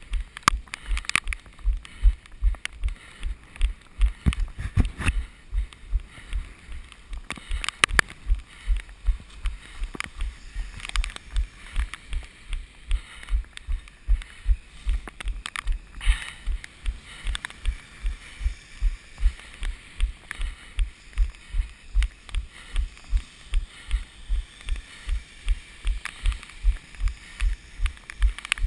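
Running footfalls: steady, even low thuds at about three a second, a jogging stride cadence.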